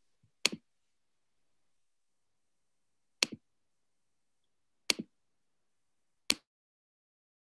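Four short, sharp clicks, each a quick double pop. They come about half a second in, a little after three seconds, near five seconds and past six seconds, with dead silence between them.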